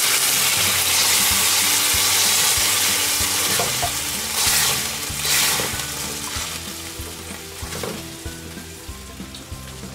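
Tomato sauce sizzling in hot oil with softened onion and garlic in a stainless steel wok, stirred with a silicone spoon. The sizzle is loudest at first, swells twice around the middle as it is stirred, and dies down toward the end.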